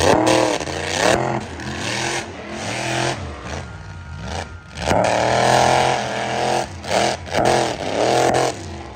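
Monster truck engine revving hard again and again, its pitch swooping up and down in quick arcs. There is a longer held high rev about five seconds in.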